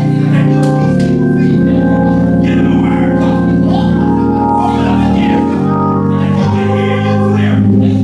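Church organ playing slow, held chords that change every second or two.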